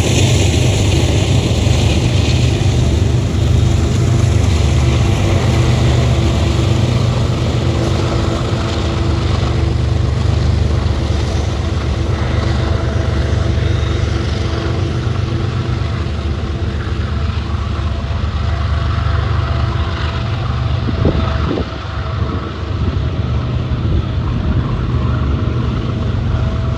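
A lashup of BNSF diesel-electric freight locomotives passing close by and pulling away, engines running with a steady low rumble, followed by loaded freight cars rolling past on the rails. A thin steady whine comes in during the second half.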